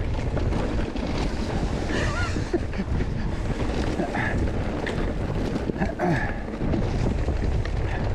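Steady wind rush on the microphone of a handlebar-mounted camera as a mountain bike rolls fast down a dry dirt trail, with small scattered clicks and rattles from the tyres and bike over the ground.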